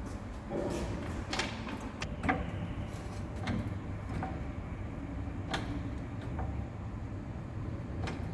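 Scattered knocks and clunks from handling work, a handful spread irregularly over a steady low hum.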